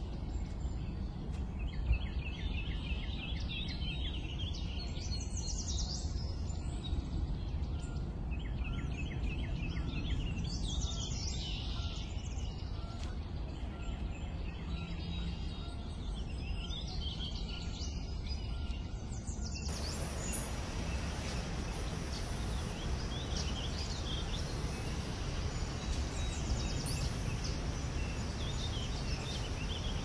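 Songbirds calling outdoors: phrases of short, quickly repeated notes that come back every few seconds, with higher chirps, over a steady low rumble. About two-thirds of the way through, the background switches to a brighter hiss with scattered calls.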